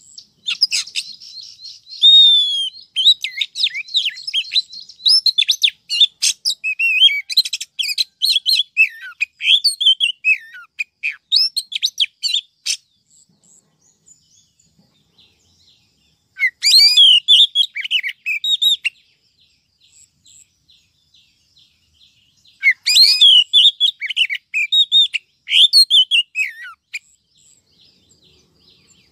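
Female oriental magpie-robin singing: quick, varied whistles, chirps and trills, a long run of song over the first twelve seconds, then two shorter phrases with quiet gaps between. It is the kind of female song played to rouse male magpie-robins and lure wild birds.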